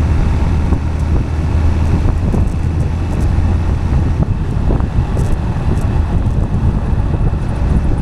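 Steady low vehicle rumble with wind noise on the microphone.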